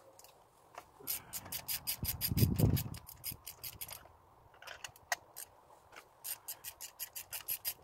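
Hand ratchet clicking in quick, even runs, about six clicks a second, as a spark plug is turned out by hand. There is a short dull rumble about two and a half seconds in.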